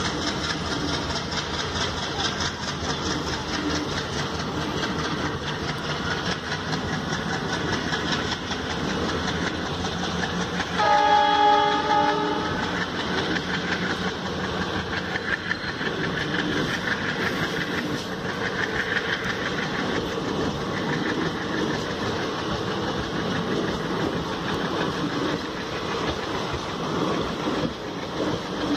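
Passenger coaches rolling slowly past, their wheels clicking over rail joints. A train horn sounds once, about 11 seconds in, for about a second and a half.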